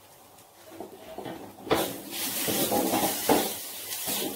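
Wooden spatula stirring grated coconut in a dry metal wok: a scraping, rustling hiss with repeated louder strokes against the pan, starting suddenly a little under two seconds in. The coconut is being dry-toasted without oil over a very low flame.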